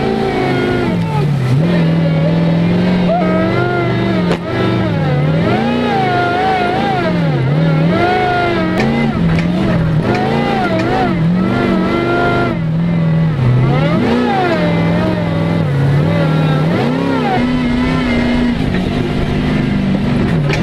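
Engine of a hydraulic-drive rock crawler buggy, revving up and down again and again as it climbs a muddy, snowy trail, with a brief dip about four seconds in.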